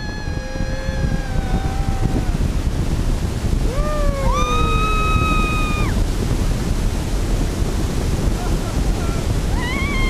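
Rushing wind buffeting the action camera's microphone during a paraglider flight, a steady low rumbling noise. A few long high tones that bend slowly in pitch rise through it, one about four seconds in and another near the end.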